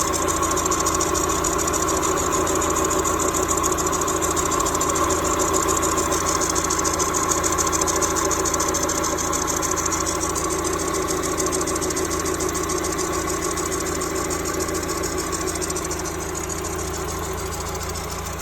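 A 1993 Mazda Miata's 1.6-litre four-cylinder engine idling steadily, carrying a weird noise from the timing belt area down toward the crankshaft.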